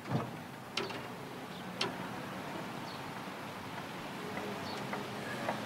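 Steady low hum of a barge's engine running, with a soft knock near the start, two short clicks in the first two seconds and a few faint high chirps.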